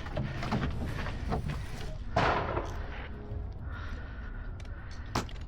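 Airsoft gunfire: a few sharp cracks over wind buffeting the microphone, with a louder short burst of noise about two seconds in.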